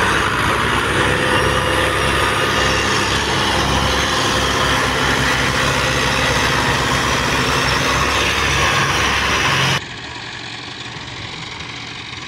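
Tractor diesel engines running hard under load, hauling heavily loaded sugarcane trolleys. About ten seconds in, the sound cuts suddenly to a quieter, duller engine sound.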